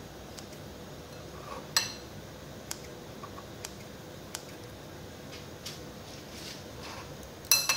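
Steel kitchen scissors snipping soft roasted Hatch chilies in a ceramic bowl: scattered sharp blade clicks, with a ringing metallic clink against the bowl a little under two seconds in and a quick burst of louder clinks at the end.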